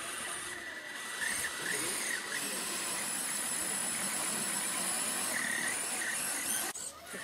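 Radio-controlled scale crawler trucks creeping over dirt: small electric motors and gearboxes whining, rising and falling with the throttle over a steady hiss.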